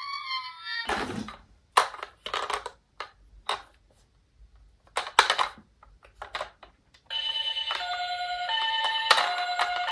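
A toy emergency-vehicle minicar's electronic siren wails, then stops just under a second in. A run of plastic clatters and knocks follows. About seven seconds in, another toy's electronic siren starts, stepping back and forth between a few beeping notes, with knocks over it.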